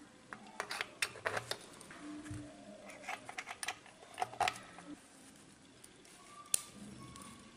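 Light clicks and rattles of test leads being handled: banana plugs pushed into a bench power supply's output terminals and crocodile clips fastened onto a bulb's metal base, with one sharper click near the end.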